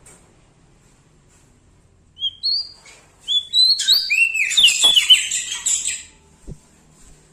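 A prenjak daun songbird singing. After a short pause it gives two brief rising whistled notes, then a fast run of loud chirps and trills lasting about three seconds.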